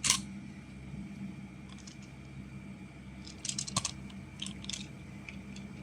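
Plastic magnetic building tiles being handled and snapped together: a sharp click at the start, then a quick run of small clicks and clacks a little past halfway and a few more shortly after.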